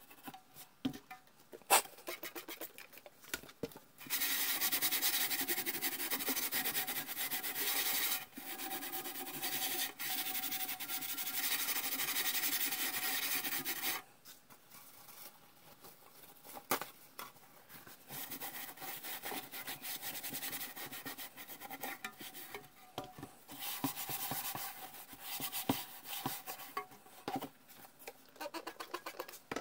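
Steel wool scrubbing rust off the painted steel cabinet of a Heathkit T-3 signal tracer, a rasping rub. After a few handling clicks, the scrubbing is loud and steady from about four seconds in to about fourteen seconds, then lighter and broken.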